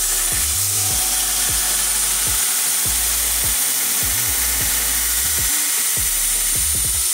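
Ameribrade belt grinder with a tube-notcher attachment grinding a notch into steel tubing: a steady hissing rasp of the abrasive belt on metal, with a high whine that holds throughout and stops near the end.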